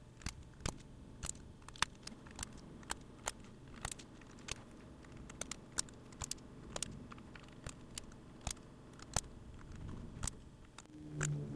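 Single sharp clicks from a Keychron Q6 mechanical keyboard as keys or keycaps are pressed one at a time, about two a second at uneven spacing. Music comes in near the end.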